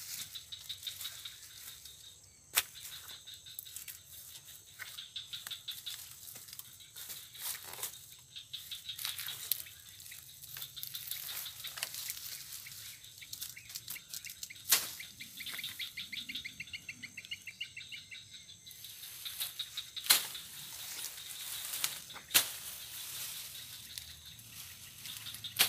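Outdoor swamp ambience: a steady high-pitched chirring of insects and birds, with a trill about sixteen seconds in. A few sharp snaps and rustles of dry stems and leaves come as someone moves through the undergrowth.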